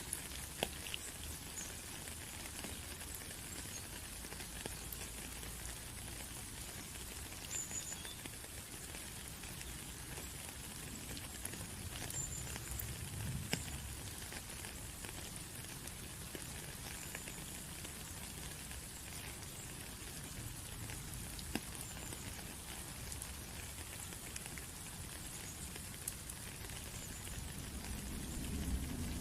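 Rain falling as a steady patter, with scattered sharp ticks of single drops.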